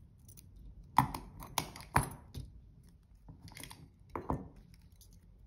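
Scissors snipping ribbon and lace: a handful of sharp clicks and taps, the loudest about a second and two seconds in.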